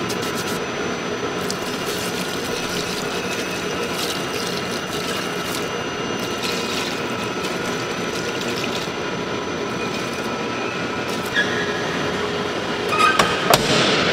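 Industrial noodle-dough mixer and surrounding factory machinery running steadily, a constant mechanical hum with scattered light clicks. There are a few sharper metallic knocks near the end.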